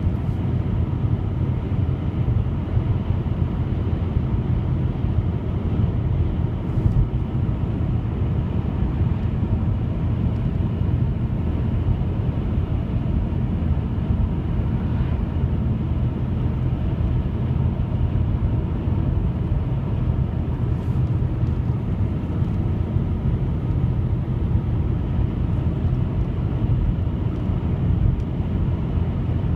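A steady deep rumbling drone, even in level throughout and without clear pitch changes: the low sound put forward as the mysterious 'strange trumpet sounds'.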